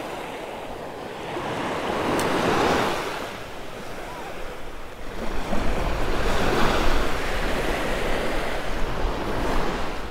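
Small surf breaking and washing up the sand, swelling twice as waves come in, with some wind on the microphone.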